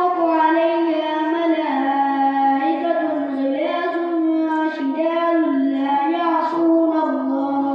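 A boy's voice chanting a Quran recitation (qiraat) in a melodic, drawn-out style, holding long notes that waver up and down.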